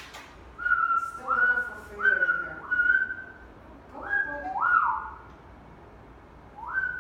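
A person whistling a run of short notes that each slide upward and then hold. There are about six in two quick groups, then a pause of over a second, then one more near the end.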